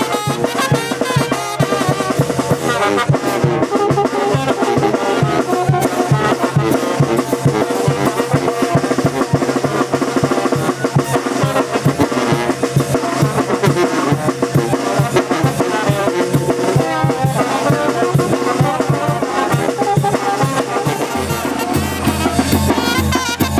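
A Mexican village brass band (banda) plays a lively dance tune, with tuba and trombones over a steady bass drum and cymbal. Near the end the bass drum becomes much louder and boomier, heard from right beside it.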